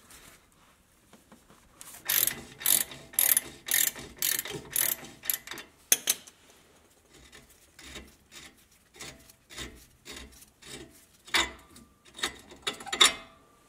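Wrench clicking in quick even strokes, about three a second, as the 15 mm axle-side track bar bolt on a Jeep's solid front axle is backed out, then slower scattered metal clicks and knocks from about six seconds on.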